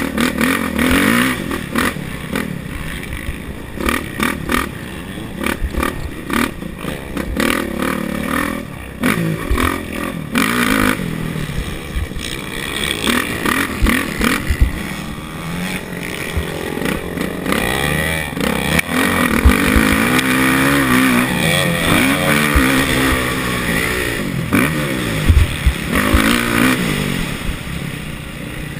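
Kawasaki KX450F motocross bike's single-cylinder four-stroke engine, heard close up from the bike, revving up and dropping back again and again under hard acceleration and throttle-off, with wind rush and knocks from the chassis over the bumps.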